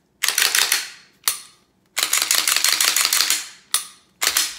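Handling noise from a pistol and its holster: several bursts of rasping scrapes and fine rapid clicks, the longest lasting about a second and a half near the middle.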